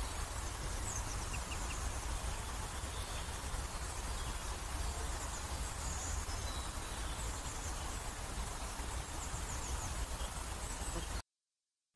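Outdoor ambience: a steady hiss with a low rumble underneath and faint, short, high bird chirps now and then. It cuts off abruptly near the end.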